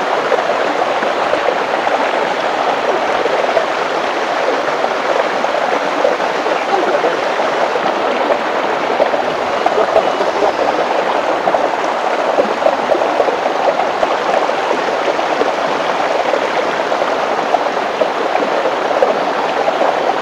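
Shallow rocky stream running, a steady rush of water flowing over and around stones.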